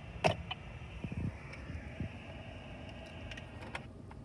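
A couple of sharp clicks in the first half-second, a few soft low knocks, then the low steady hum of a quiet car cabin.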